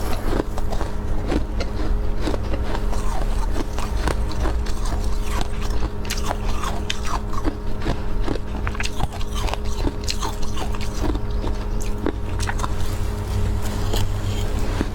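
Close-miked biting and chewing of powdery freezer frost: a dense, irregular run of crunches over a steady low hum.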